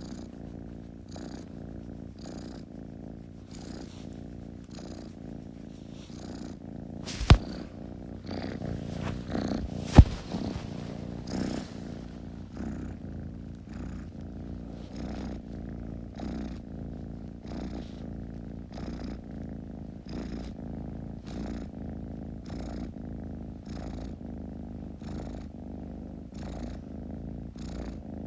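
Kitten purring steadily, the purr rising and falling with its breathing about every three-quarters of a second. Two sharp clicks cut in about seven and ten seconds in, louder than the purr.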